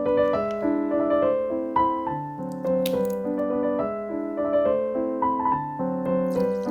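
Background piano music: a gentle melody over sustained chords, with a brief faint rustle about three seconds in.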